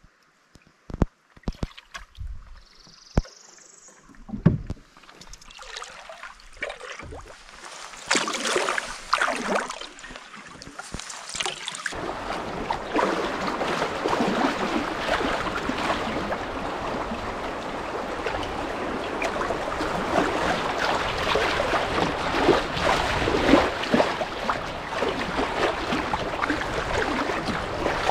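A few sharp knocks over quieter water. About twelve seconds in, steady rushing and splashing of riffle water around a paddled canoe takes over.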